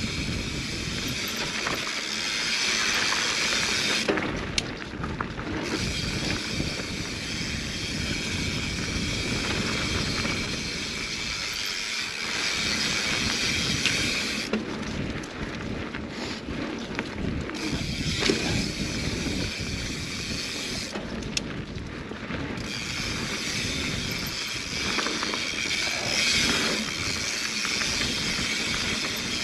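Mountain bike riding fast down a dirt singletrack: tyres rolling over dirt and the bike rattling, under a steady rushing hiss. The high hiss drops out briefly three times, about four, fifteen and twenty-one seconds in.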